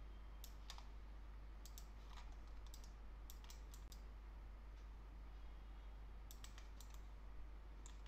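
Faint, irregular clicks at a computer, in small clusters with a gap of a couple of seconds in the middle, over a faint steady low hum.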